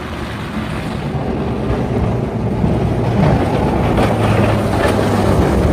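Steady low rumble of a vehicle in motion with a rushing hiss over it, a little louder from about three seconds in.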